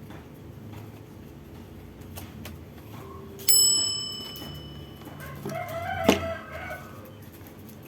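A rooster crowing once, a wavering call lasting about a second and a half, preceded by a sudden bright metallic ring that dies away over about a second, against a steady low hum.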